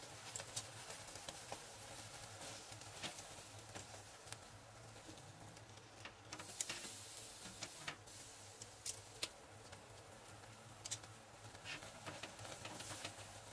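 Faint crackling and spitting of a buri (amberjack) fillet grilling on a wire mesh grill over a gas burner: sharp pops at uneven intervals over a low steady hiss. A few clicks come as metal tongs lift and turn the fillet on the mesh.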